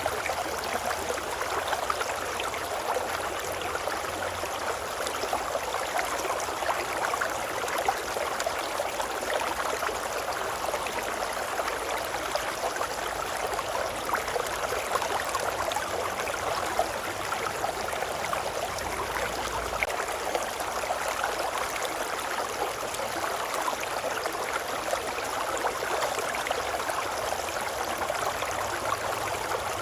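Babbling brook: running water in a steady, even rush, unchanging throughout.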